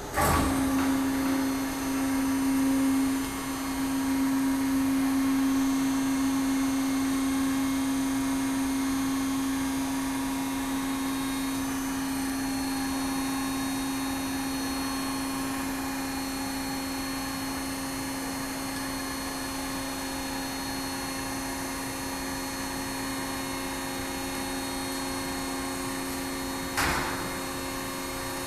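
VMI spiral mixer's head-lift drive starting with a sudden onset and then running with a steady motor hum as the mixing head tilts up off the bowl. A short knock sounds near the end.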